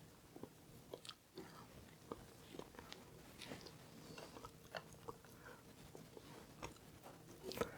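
Faint scattered clicks and light taps, typical of food and utensils being handled while loading an air fryer basket.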